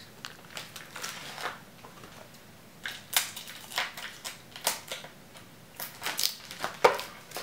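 Plastic shrink wrap being cut and pulled off a new skateboard deck: a run of short, irregular plastic crinkles, most of them from about three seconds in.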